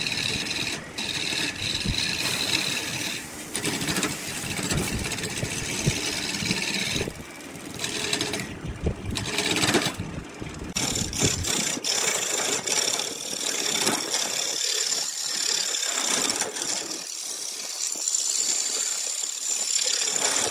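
Wood lathe running while a hand-held turning tool cuts a spinning glued-up wooden cylinder, a continuous rough scraping with irregular rattles. About halfway through, the deeper rumble drops away and the cut goes on as a thinner, higher hiss.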